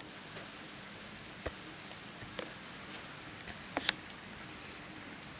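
Light rain: a steady hiss with scattered drips ticking, including a sharper double tap about four seconds in.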